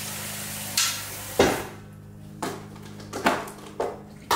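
About six sharp knocks and clanks of a stainless steel cooking pot and dishes being handled at a kitchen sink, the loudest about a second and a half in, over soft background music.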